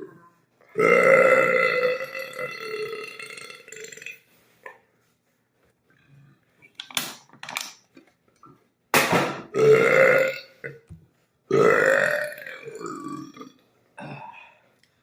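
Long, gravelly belches brought up after gulping carbonated soda. The first comes about a second in and lasts about three seconds; two more follow, a little past the middle and toward the end, with a few short belches between.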